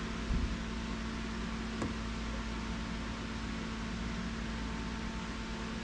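Steady low hum with hiss, with a soft thump about half a second in and a faint click just before two seconds in.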